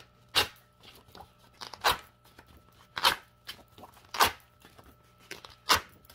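Scratch-off lottery tickets being torn one at a time from a pack along their perforations: five short, sharp tears about every second and a half.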